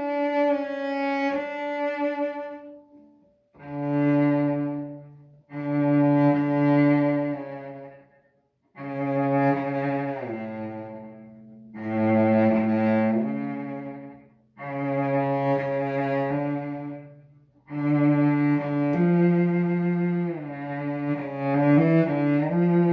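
A cello by A. Sandini played with the bow: a phrase dies away, then a series of long sustained notes, each a few seconds long with brief breaks between, some changing pitch partway through.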